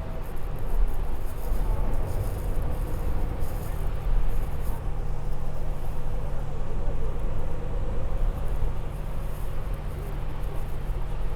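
Inside a moving bus: a steady low engine and road rumble with a constant hum, and faint hiss and rattle above it.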